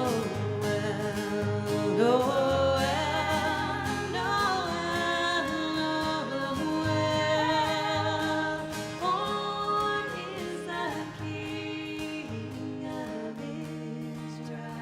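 Music: singing over instrumental backing, with a bass line moving under the voices.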